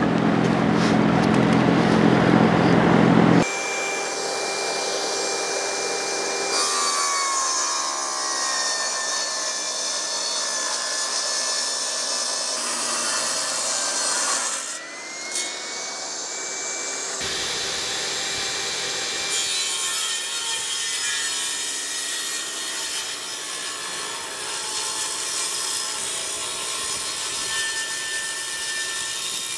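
Jobsite table saw ripping yellow pine 2x8 boards lengthwise, its blade running under load through several cuts. About halfway through, the saw's whine dips and then rises again.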